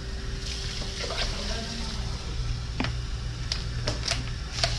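A knife cutting and scraping along a large yellowtail snapper's backbone and ribs as the fish is deboned, with a few sharp clicks in the second half as the blade meets bone. A steady appliance hum runs underneath.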